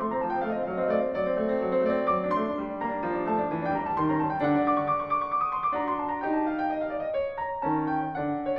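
Classical piano music, its notes changing several times a second.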